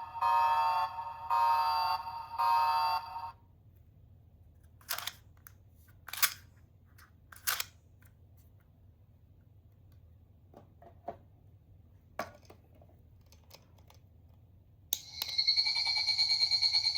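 A small electronic sound toy plays a repeating alarm-like beep made of rising sweeps, about one burst a second, and stops about three seconds in. A few sharp clicks follow, likely the toy's buttons being pressed, and near the end a different steady electronic tone with a fast warble starts.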